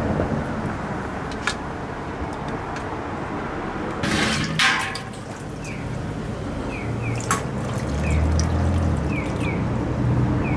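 Oden broth being ladled in a steel stockpot: a short pour and splash of liquid about four seconds in, over a steady background hum. Faint short chirps repeat in the second half.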